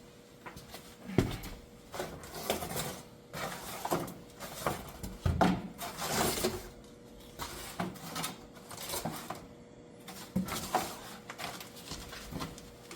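Irregular knocks and clattering of hard objects being handled and struck, as a tool is banged at a clogged boiler drain to try to free it. A faint steady hum runs underneath.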